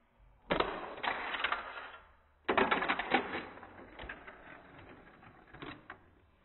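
Hot Wheels plastic track set clattering: two rattling bursts of quick clicks. The second comes about two seconds after the first, runs longer, and ends in a few scattered clicks.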